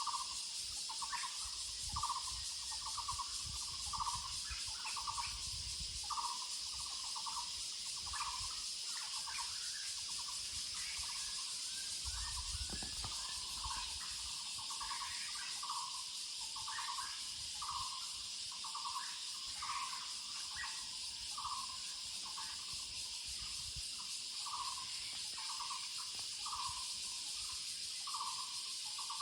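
Taiwan barbet (Muller's barbet) calling: a long, even series of short low notes, about one and a half a second, over a steady high drone of insects.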